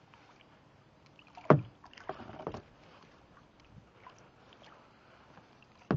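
Kayak paddle strokes: a sharp hit about a second and a half in, the loudest sound, then a short run of splashing, and another sharp hit near the end.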